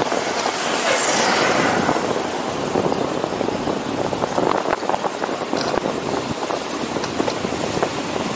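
City traffic and road noise heard from a moving bicycle, dense and steady, with many small rattles and knocks; a whoosh falls in pitch about a second in.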